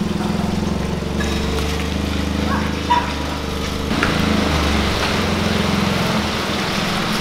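Maruti 800's small three-cylinder petrol engine running as the car creeps along at low speed, its hum shifting in pitch a few times, with a hiss of rain on wet paving.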